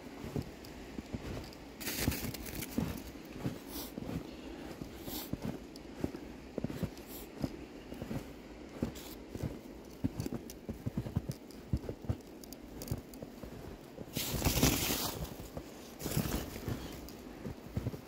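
Footsteps crunching through deep fresh snow, irregular muffled crunches, with louder rushes of noise about two seconds in and twice near the end.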